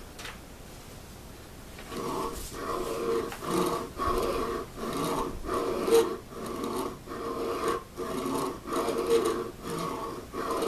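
A round file drawn back and forth across a hard deer-antler nut in steady, repeated scraping strokes, about one and a half a second. The strokes start about two seconds in. The antler is very hard, so the file is barely cutting a trough.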